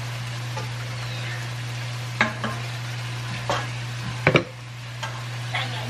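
Food sizzling in a pan on the stove, a steady hiss over a steady low hum, with four short sharp knocks of cookware between about two and four and a half seconds in, the last the loudest.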